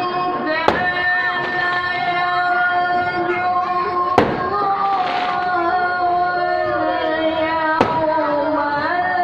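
A solo voice reciting the Qur'an in the melismatic tilawah style, holding long, steady notes joined by short ornamented turns. Three sharp clicks cut in, about a second in, about four seconds in and near the end.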